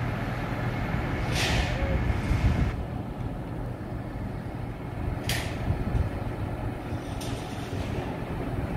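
Zoomlion truck crane's diesel engine running steadily under load during a heavy lift, with three short hisses: about a second and a half in, around five seconds in, and again a couple of seconds later.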